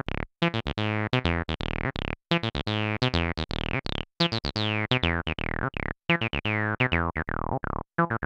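Behringer TD-3 analogue bass line synthesizer, a TB-303 clone, playing a sequenced acid bassline of short repeated notes. The filter cutoff and resonance are being turned, so each note carries a falling, squelchy resonant sweep, though the resonance stops short of a screech.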